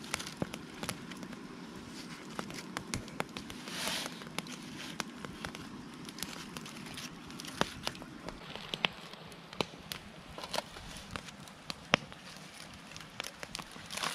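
Campfire crackling with scattered sharp pops, mixed with aluminium foil crinkling as foil packets are sealed up and handled, loudest in a short burst about four seconds in.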